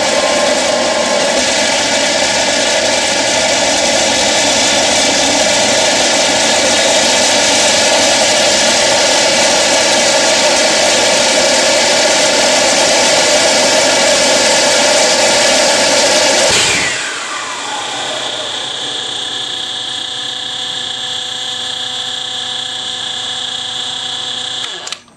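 Homebuilt turbojet made from a turbocharger, burning propane, running loudly with a leaf blower forcing air into its compressor. About 17 seconds in, the combined noise drops and a whine falls away in pitch as the blower is shut off. The engine keeps running on its own with a steady high whine, self-sustaining, until the sound cuts off abruptly near the end.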